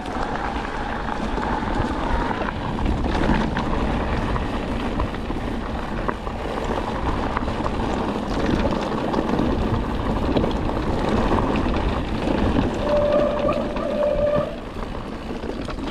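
Mountain bike being ridden along a dirt trail: steady rolling tyre and rattle noise with wind rumble on the microphone. Near the end there is a short steady whine, after which the noise drops.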